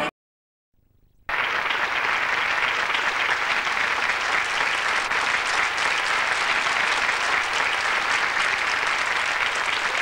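After a brief silence, a crowd of children starts applauding about a second in and keeps clapping steadily.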